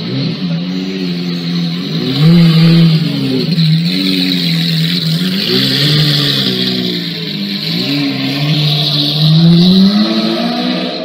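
Lamborghini Aventador V12 engine revving repeatedly, its pitch climbing and dropping again and again, over a steady high hiss.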